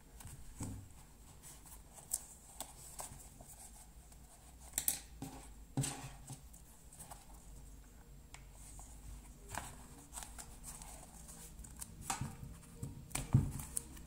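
Hand stitching leather: a needle pushed through pebble-grained leather and thread drawn through, with soft rustling and a handful of scattered sharp clicks and taps.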